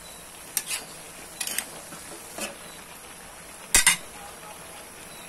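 Metal spatula scraping and clanking against a metal wok while stir-frying vegetables: a few separate strokes, the loudest a quick double clank about four seconds in.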